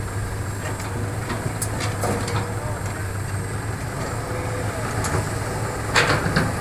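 Hitachi hydraulic excavator's diesel engine running steadily while it swings and dumps a bucket of soil into a dump truck. A few sharp knocks come through, the loudest about six seconds in.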